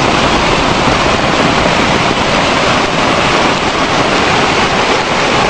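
Runoff water swollen into a big river, rushing loud and steady.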